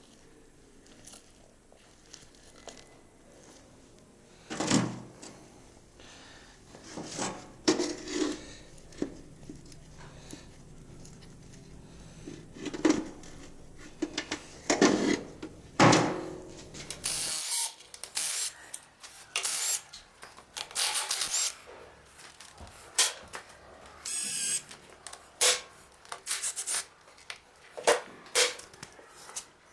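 Hand work on a diesel engine being taken apart: scattered metal clicks and knocks from tools and parts. In the second half these give way to a run of short scraping and rattling noises.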